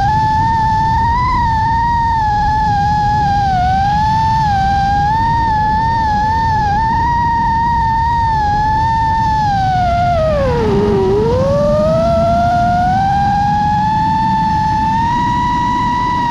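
Five-inch Cricket Moongoat FPV quadcopter's motors on a 6S battery whining in flight, the pitch wavering with the throttle. About ten seconds in, the whine drops sharply as the throttle is chopped, then climbs back as power comes on again, over a steady low rush of wind.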